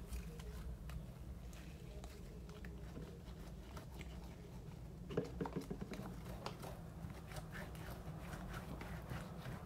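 Slime being mixed and kneaded by hand: faint sticky clicks and squelches, denser in the second half, with a brief louder squelch about five seconds in, over a low steady hum.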